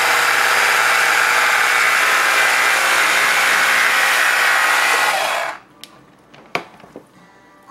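Electric carving knife running as its reciprocating blades slice through a cooked beef roast; the motor buzz cuts off suddenly about five and a half seconds in. A few light clicks follow.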